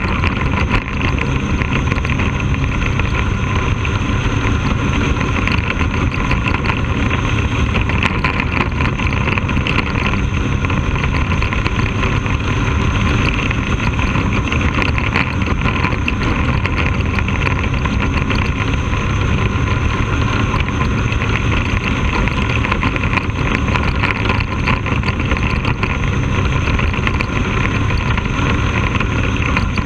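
Bandolero race car's single-cylinder Briggs & Stratton engine running steadily under load, heard from on board the car, with tyre and wind noise.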